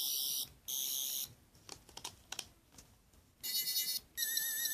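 Toy 10th Doctor sonic screwdriver pen playing its electronic sonic sound effect through its small speaker: four short high-pitched buzzing bursts in two pairs, the last with a warbling tone. Light clicks come between the two pairs.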